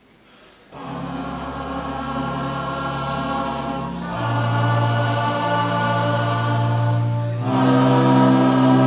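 Large choir singing long held chords, coming in suddenly under a second in and moving to a new chord twice.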